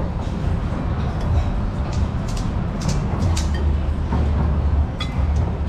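Metal serving tongs clinking several times against steel pots and ceramic bowls as beef is portioned out, over a steady low rumble.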